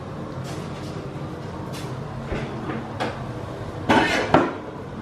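A kitchen drawer of pots and pans being opened and rummaged through. There are scattered light knocks, then a louder clatter of metal cookware about four seconds in.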